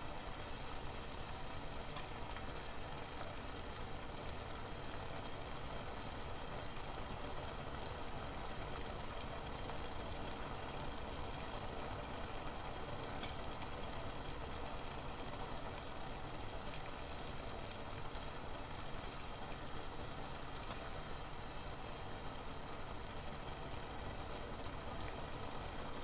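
Water heating in a stainless steel saucepan on a ceramic hob, making a steady low rumble and hiss as small bubbles form on the bottom of the pan, just short of a full rolling boil.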